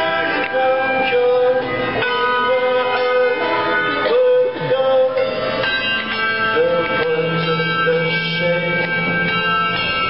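Tuned handbells rung by several players, many bells sounding and ringing on in overlapping chords, with a man singing the melody over them.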